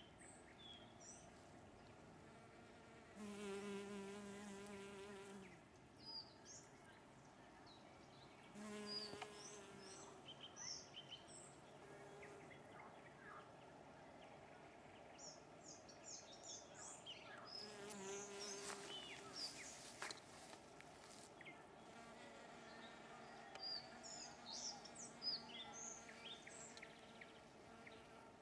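Honey bee buzzing in flight close by, in three short passes: a longer one about 3 seconds in, a brief one around 9 seconds and another around 18 seconds. Small birds chirp faintly throughout.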